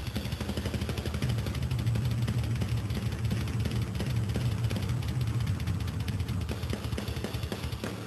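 Heavy-metal drum kit played at speed: a rapid, unbroken string of bass-drum beats with cymbals crashing over it, in live concert sound.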